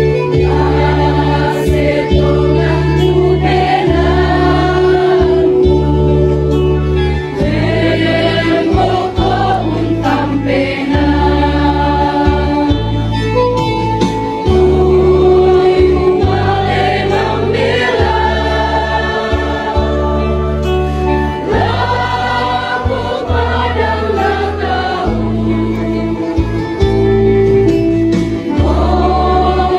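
Choir music: several voices singing a hymn over steady low chords that change every second or two.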